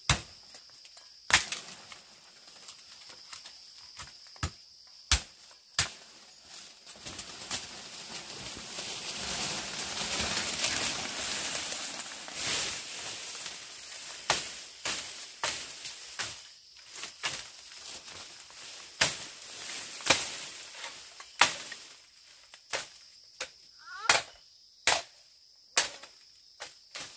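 Machete chopping through bamboo stalks and undergrowth: sharp single chops at irregular intervals, often a second or two apart, with a stretch of loud rustling of leaves and branches in the middle as cut stalks are dragged through the brush.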